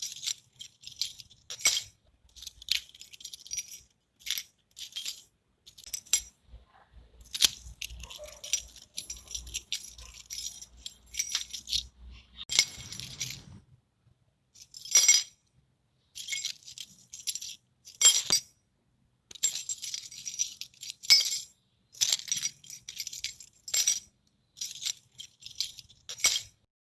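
A bunch of metal keys jangling and clinking in many short shakes, each a quick cluster of chinks, separated by brief silences.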